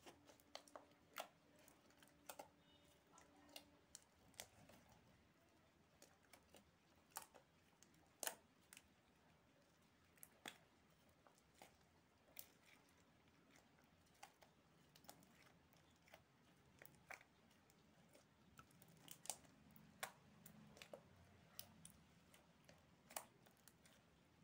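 Glossy glitter slime being squeezed and kneaded by hand, giving off scattered, irregular small clicks and pops.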